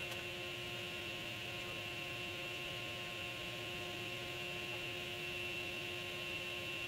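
Woodshop machinery running steadily, a constant hum with a high whine over it. No wood is being cut.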